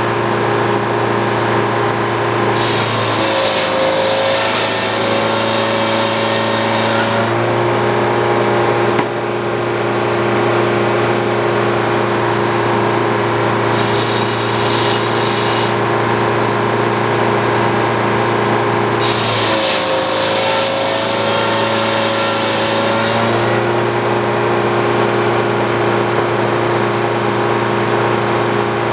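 Old Frick sawmill running steadily, with its circular blade cutting a poplar log twice: each cut brings a loud hiss of sawing and the machine's pitch drops under the load, then recovers when the blade runs free.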